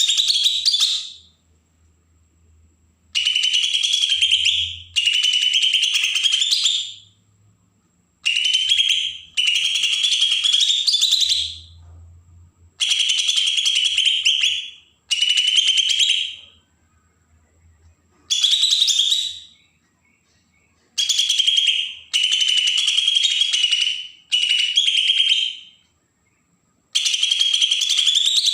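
Cucak ijo (green leafbird) giving its harsh, rasping 'besetan' call in repeated bursts of one to two seconds with short gaps between them, each burst a fast run of scratchy notes. This is the call used as a lure to set young wild-caught birds calling.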